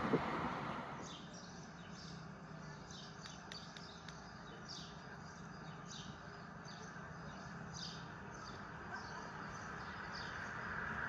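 A LEGO train running on plastic track for the first second, then repeated short high chirps, irregular and about twice a second, over a faint low hum. Near the end the LEGO train's running noise rises again as it approaches.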